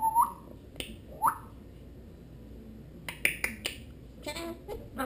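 African grey parrot making sharp clicks and short whistles. Two brief rising whistles come in the first second and a half, and a quick run of clicks follows about three seconds in.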